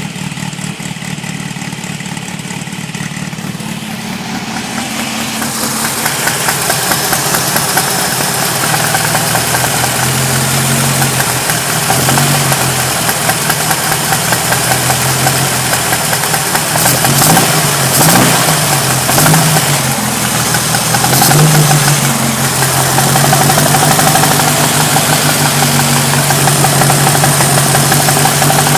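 Volkswagen engine with a Kadron carburettor running near idle with a rapid rattling 'ratatat' noise whose cause is unknown, with a few brief small revs in the second half.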